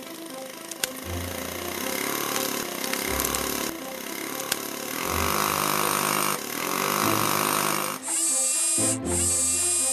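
Cartoon sound effect of a power tool spike boring into asphalt and cracking the road, over background music. Near the end come two loud, harsh bursts, each about a second long.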